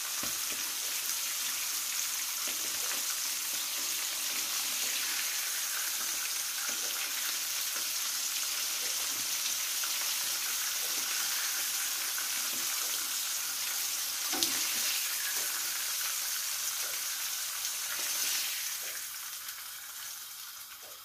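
Floured horse mackerel (carapaus) frying in hot olive oil in a frying pan, a steady sizzle, with scattered light clicks of metal tongs against the pan as the fried fish are lifted out. The sizzle dies down near the end.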